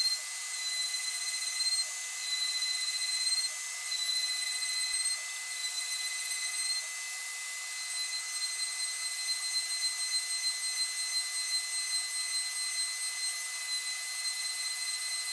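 Homemade CNC router drilling a wooden sacrificial plate while a vacuum nozzle draws off the chips, heard as a steady machine hiss. Over it runs a high-pitched whistle made of several fixed tones, whose level steps up and down a few times in the first half.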